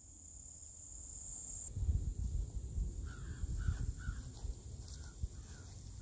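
Wind buffeting the microphone in gusts, with a steady high insect buzz behind it. From about halfway in, a bird gives a series of short calls, about two a second.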